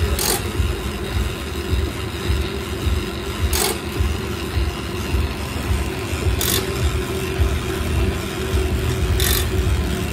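A track bike spinning fast on aluminium free rollers makes a steady low rumble and whir from the drums and tyres. Four short sharp noises come through it, about three seconds apart.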